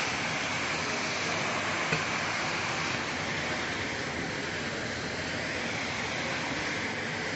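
Steady rushing noise of a running film shrink-wrapping machine, its heat tunnel blowing hot air, with a faint click about two seconds in.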